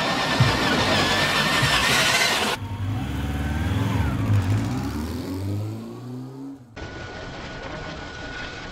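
Traxxas TRX-4 RC crawler's electric motor whining as its tyres roll over gravel. About two and a half seconds in, this cuts abruptly to a low, revving engine sound effect that fades out. From about two seconds before the end, a steady high motor whine from the crawler sets in.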